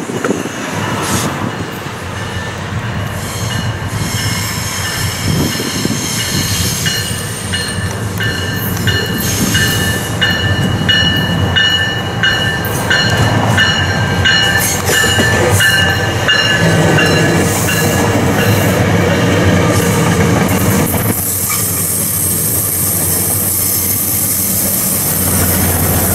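A train rolling past at close range: the steady rumble and rattle of its cars on the rails, with high, ringing wheel squeal through the middle of the pass.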